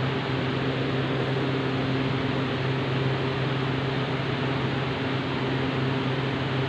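Steady machine hum, a strong low drone with a few fainter steady tones above it, over a constant hiss.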